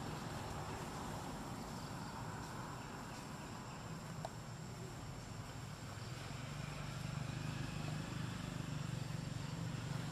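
A motor engine's low, steady hum, getting a little louder about six seconds in, with a thin, steady high tone above it.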